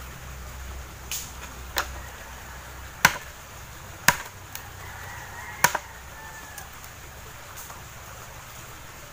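Machete chopping thin firewood branches: about five sharp, irregularly spaced strikes of the blade into the wood in the first six seconds, the loudest near the middle.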